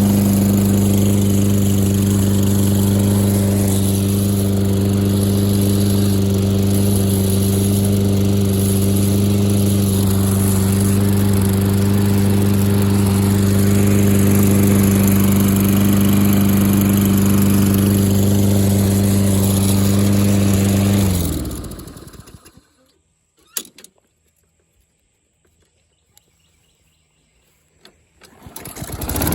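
Lawn-Boy 10682's 195cc Tecumseh four-stroke engine running steadily at constant speed, then shut off about twenty seconds in, winding down within a second. After several seconds of near quiet broken by a click or two, the engine starts and runs again at the very end.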